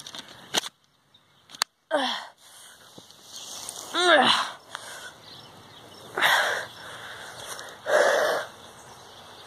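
A boy acting out being hit and dying: a sharp click about a second and a half in, then a cry that falls in pitch, a longer wavering groan falling in pitch about four seconds in, and two loud breathy gasps near the end.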